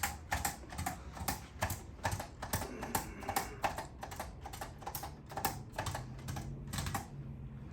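Rapid, irregular clicking, several sharp clicks a second, which stops about seven seconds in.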